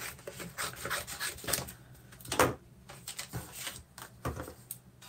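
Cardstock being handled and cut with scissors on a wooden desk: irregular rubbing, sliding and rustling of card, the loudest scrape about halfway through.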